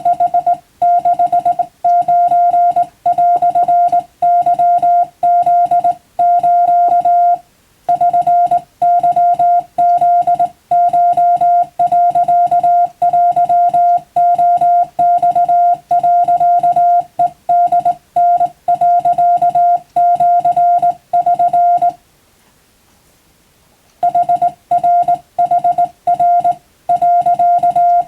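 Wabun (Japanese) Morse code sent as a single steady beeping tone, keyed on and off in quick dots and dashes, with a pause of about two seconds about three-quarters of the way through.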